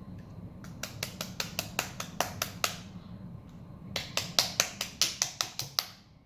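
Flarp noise putty being worked in its tub, letting out two quick runs of short sharp pops at about six a second, the first about half a second in and the second about four seconds in.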